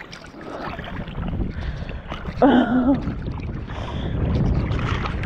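Shallow sea water sloshing and splashing around a wading angler and landing net, with wind on the microphone. A short voiced exclamation comes about halfway through.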